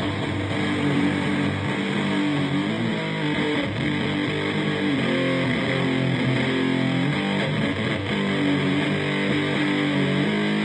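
Electric guitar playing improvised droning riffs, with held, overlapping notes shifting pitch every second or so under a thick, noisy tone.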